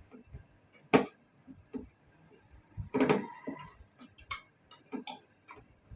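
Irregular clicks and knocks of tools and metal parts being handled while a washing machine is reassembled after a gearbox repair. There is a sharp knock about a second in, and a cluster of clinks with a brief ring around three seconds.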